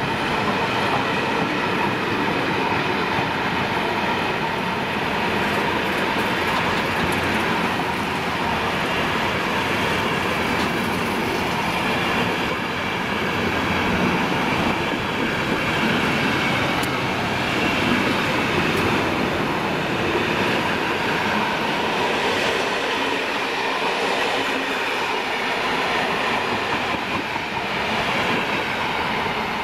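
Passenger coaches of a long train, including sleeping cars, rolling steadily past: a continuous rumble and clatter of wheels on the rails, with a faint squeal from the wheels.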